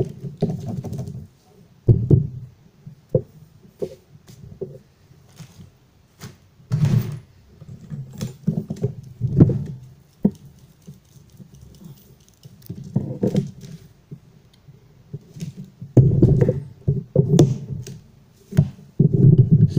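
Volvo electronic throttle module housing being knocked and tapped on a table, irregular thunks with short rattly clusters, as grinding shavings are shaken out of it.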